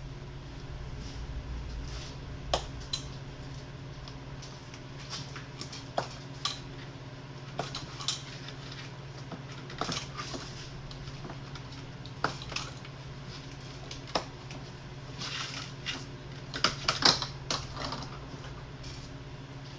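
Scattered metallic clicks and clinks of hand tools and engine parts being handled during diesel injector work, a cluster of them near the end, over a steady low hum.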